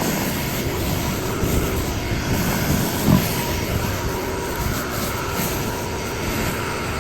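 A small gas engine running steadily under a dense, constant hiss.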